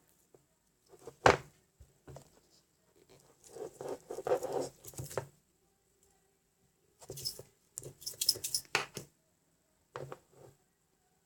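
Scattered handling noises: a sharp click about a second in, then two spells of scratchy rustling and scraping, and a couple of light clicks near the end.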